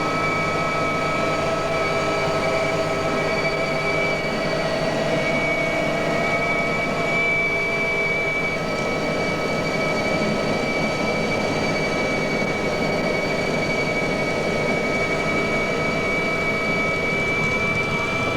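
Mi-2 helicopter in flight, heard from inside the cabin: the steady drone of its twin turboshaft engines, rotor and gearbox, with several constant high whining tones over it.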